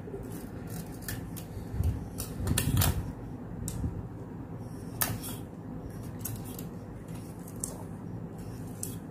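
Hand-winding enamelled copper wire onto a plywood-and-PVC coil former for a passive crossover inductor: irregular light clicks and ticks from the wire and the turning former, with a few duller knocks about two to three seconds in.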